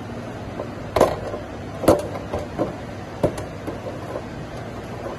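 Several sharp knocks and clunks as a printing machine's ink container is worked and pushed into its slot against the anilox cylinder, the loudest two about one and two seconds in, over a steady low machine hum.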